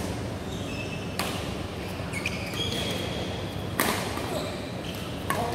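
Badminton rally: rackets striking the shuttlecock, two sharp hits about two and a half seconds apart, each ringing briefly in the hall. Between them come short squeaks of shoes on the court floor, over a steady low hum.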